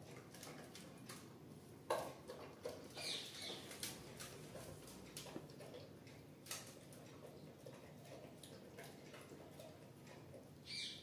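Doberman eating from a stainless steel bowl: faint, irregular clicks and smacks of its mouth in the food and against the bowl, the loudest about two seconds in.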